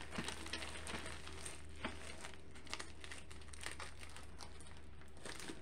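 Faint crinkling and small crackles of clear plastic wrapping as hands handle a rolled diamond painting canvas, over a low steady hum.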